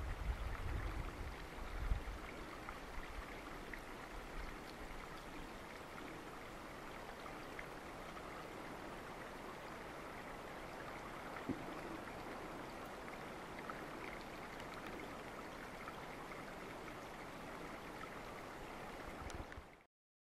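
Steady rush of flowing river water. A low wind rumble is heard in the first two seconds, and a single faint click comes about eleven seconds in. The sound cuts off just before the end.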